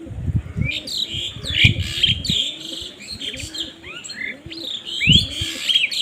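Small birds chirping busily in short sweeping notes, with doves cooing low underneath. Low rumbling bumps run through the first two seconds and come again about five seconds in.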